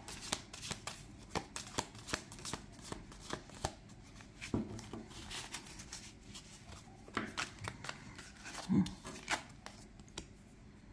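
A large deck of 110 glossy tarot-size cards being shuffled by hand: quick crisp flicks and slides of card on card, busiest in the first few seconds and thinning out after. A short low sound near the end is the loudest moment.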